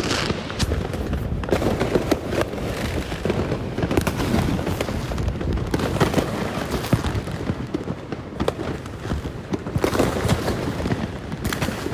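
Fireworks going off: a dense, unbroken run of bangs and crackles, with louder bangs now and then.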